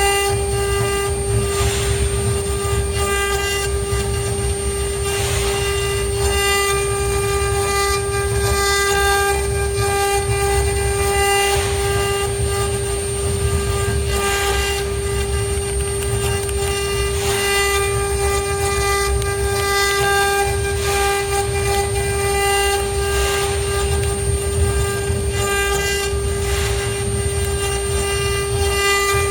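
ART1325 CNC router running, its spindle giving a steady high-pitched whine over a low rumble.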